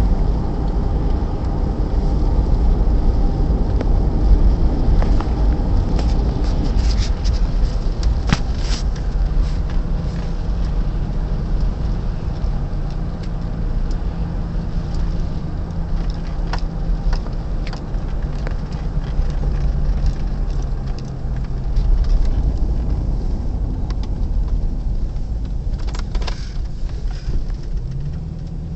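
Jeep Grand Cherokee WJ with the 4.7-litre V8, heard from inside the cabin while driving: a steady low engine hum over road rumble. A few light ticks sound now and then.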